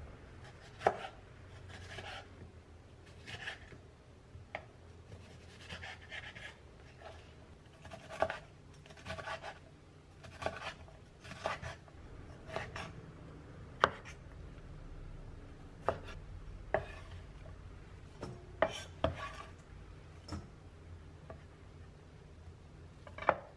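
Knife chopping on a cutting board in irregular strokes, roughly one a second, a few of them sharper knocks, over a low steady hum.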